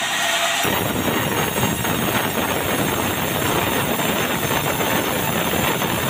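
Sawmill saw running and cutting red meranti timber: a loud, steady, dense machine noise. The deeper part of the sound comes in about half a second in.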